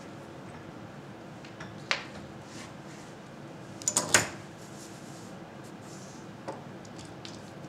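Short knocks and clatters of steel bar clamps being handled on a wooden workbench top, loudest in a quick cluster of three or four clacks about four seconds in, with a single knock about two seconds in and fainter taps later. A faint steady hum lies underneath.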